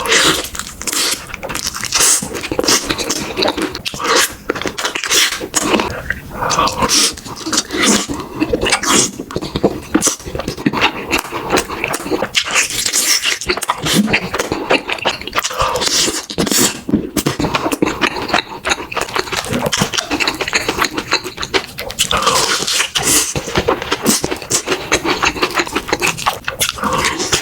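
Close-miked eating: chewing and crunching food, a dense, irregular run of quick clicks and crackles.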